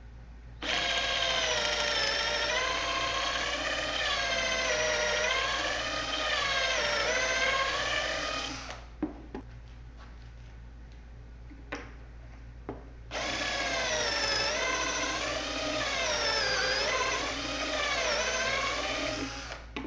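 Workzone 16V cordless drill boring pocket holes with a stepped bit through a pocket-hole jig into a wood panel, in two runs of about eight and six seconds. The motor's pitch wavers up and down as the bit loads and frees. A few short knocks fall in the pause between the runs.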